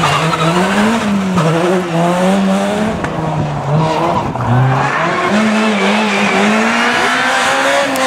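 Rally car engine revving hard, its pitch climbing and falling repeatedly as the driver shifts gears and lifts off and back on the throttle.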